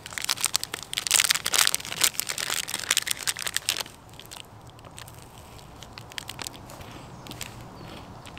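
Plastic food wrapper crinkling and tearing as it is handled and opened, for about four seconds, then much quieter with only a few faint clicks.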